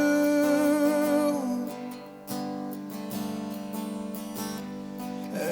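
Live rock ballad: the singer's held last note of a line fades out in the first second and a half, then strummed acoustic guitar accompaniment carries on alone between sung lines.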